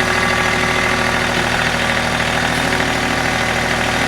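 Heavy equipment engine idling steadily.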